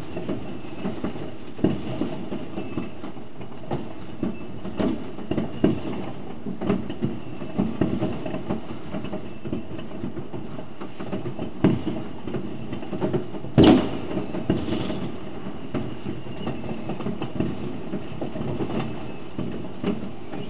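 Many fireworks and firecrackers going off at once across the distance, an unbroken run of irregular bangs and crackles, with one louder, sharper bang about two-thirds of the way through.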